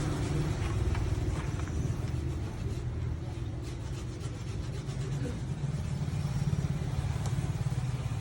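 Vehicle engine running steadily at idle, a low even hum that eases slightly midway and then picks up again.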